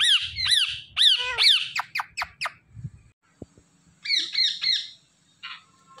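Indian ringneck parakeets calling: a quick run of about ten falling squawks over the first two and a half seconds, the last ones shorter and quicker, then a second burst of about five squawks around four seconds in.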